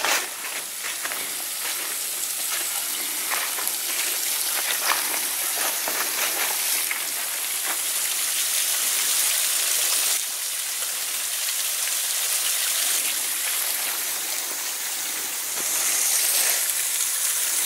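Small waterfall rushing steadily, a constant splashing hiss of falling water that grows a little louder near the end.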